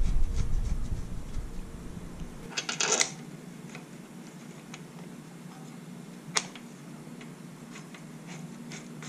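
Light metallic clicks of a motorcycle front brake caliper and its bolts being handled and fitted onto the fork leg: a short cluster of clicks about three seconds in and a single sharp click a little after six seconds.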